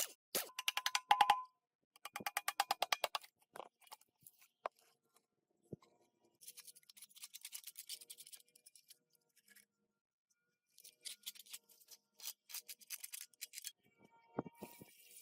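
Rapid back-and-forth scraping or brushing strokes on engine parts, in several bursts of one to three seconds with pauses between.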